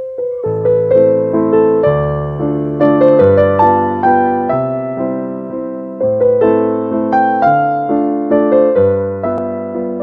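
Background piano music: a gentle, unhurried tune of struck notes that ring and fade, with a melody over held bass chords.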